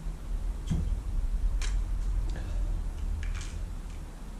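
A beer glass set down on a wooden bar top with a knock a little under a second in, then a metal fork clinking and scraping on a plate a few times while cutting into an omelette, over a steady low hum.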